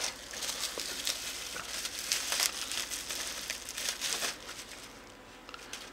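Bubble-wrap packaging crinkling and rustling as a small part is lifted out of its box and unwrapped by hand. The sound dies away about four seconds in.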